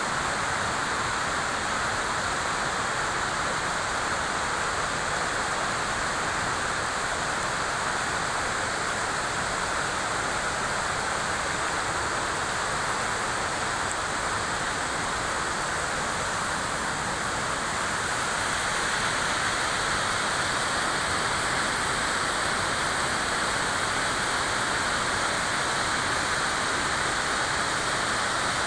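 A natural river flowing: a steady rush of water that grows slightly louder about two-thirds of the way in.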